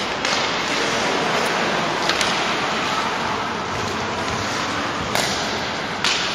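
Ice hockey game in a rink: a steady wash of skates on ice and arena hubbub, broken by several sharp knocks of sticks and puck, about two seconds in, then twice near the end.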